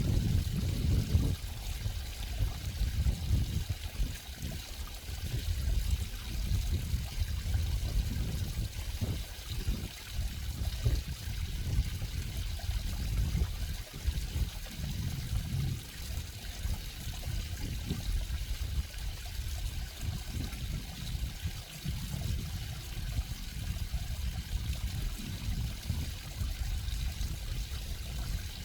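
Running water flowing continuously, a deep, uneven rushing that rises and falls in level from moment to moment.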